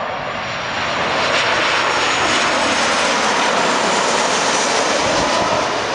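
Boeing 737-700 airliner on landing approach passing low overhead, its CFM56-7B turbofan engines making a loud, steady jet noise. The noise grows about a second in, holds, and begins to ease near the end as the plane moves past.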